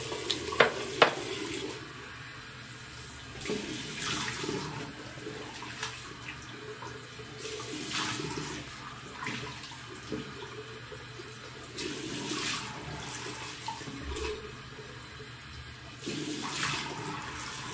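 Tap water running into a bathroom sink, with splashing surges about every four seconds as a freshly shaved face is rinsed. Two sharp clicks sound near the start.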